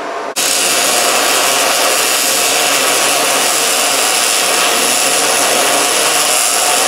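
Handheld gas torches hissing briefly, then about half a second in a welding arc crackling and sizzling steadily as the steel axle truss is welded onto the preheated cast-iron differential housing; it cuts off abruptly at the end.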